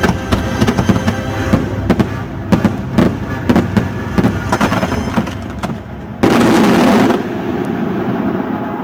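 Fireworks going off in rapid succession, many sharp bangs and crackles one after another, with music underneath. About six seconds in, a loud, dense blast lasts about a second, then the bangs give way to a quieter, steadier sound.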